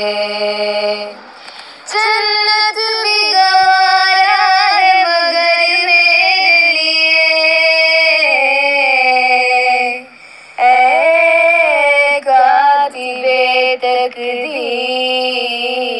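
A woman singing a slow melody in long held notes with a wavering pitch, breaking off briefly twice, about a second in and again about ten seconds in.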